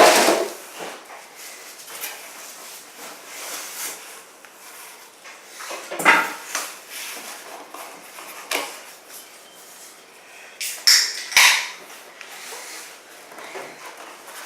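Styrofoam packing and cardboard box scraping and rustling as a microwave is worked out of its box, in separate bursts: a loud one at the start, another about six seconds in and two more around eleven seconds.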